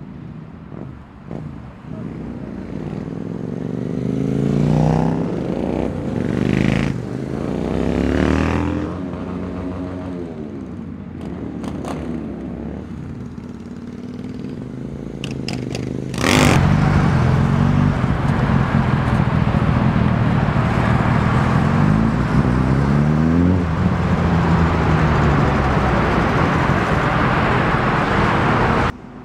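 Motorcycle engines revving in traffic, with several rises and falls in pitch in the first half. About halfway through, a much louder, steadier engine sound with exhaust hiss starts suddenly and cuts off abruptly near the end.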